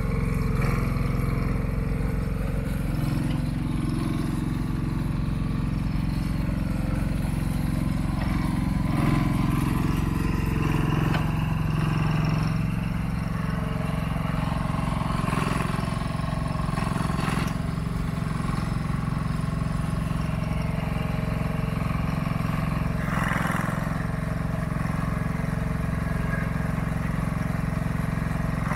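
Engine of a TE10B 1-ton mini excavator running steadily as the boom and bucket are worked, with a few short knocks along the way.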